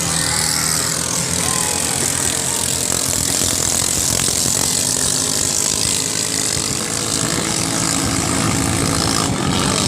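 Ketinting longtail boat engines running steadily.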